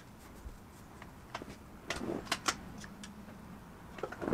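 A few light, irregular clicks and taps from a thin metal ink pen being handled over a drawing board. The loudest cluster comes about two seconds in and another just before the end, over a steady faint hiss.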